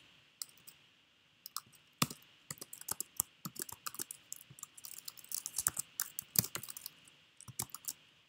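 Typing on a computer keyboard: a few separate key clicks over the first two seconds, then a quick, irregular run of keystrokes that stops shortly before the end.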